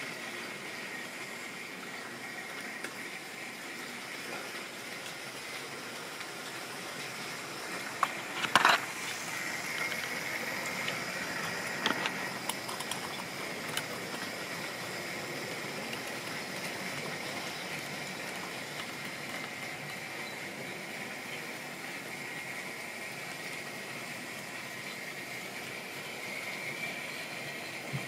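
Model trains running on a layout: a steady whirr of small electric motors and wheels rolling over the rails. A cluster of sharp clicks and knocks comes about a third of the way in, with a few more shortly after.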